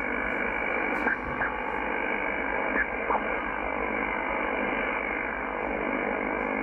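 Over-the-horizon radar signal received on a Yaesu FTdx10 shortwave transceiver near 15.9 MHz: a steady, wide rush of noise with faint sweeping tones running through it, heard through the radio's speaker as the receiver is tuned slowly across the signal.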